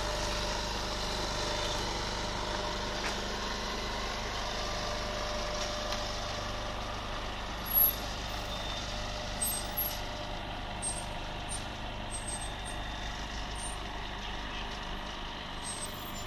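Heavy-haul truck's diesel engine running steadily at low revs while it pulls a multi-axle low-loader slowly along, with a sharp air-brake hiss about eight seconds in and a few shorter hisses after it.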